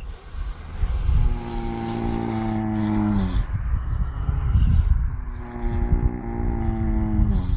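Sleeping horse snoring: two long pitched snores of about two seconds each, each dropping in pitch as it ends, over a steady low rumble.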